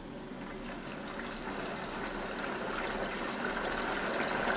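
Milk poured into a deep fryer of hot oil, the oil sizzling and bubbling up with a hissing rush that grows steadily louder.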